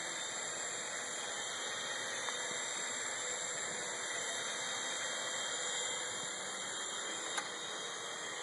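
Steady high whirring hiss of a HOOT micro electric coaxial RC helicopter's motors and rotors in flight, with one faint click about seven seconds in.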